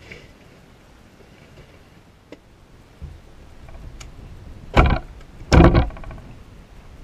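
Handling noise at a pickup truck's hard bed cover right by the microphone: a few light clicks, then two loud rattling clunks under a second apart as gear is knocked against the truck bed.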